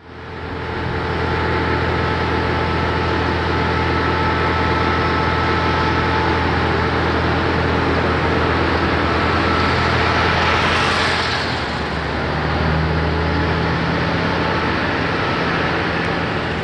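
Steady engine rumble with a low hum beneath a wash of noise, fading in at the start.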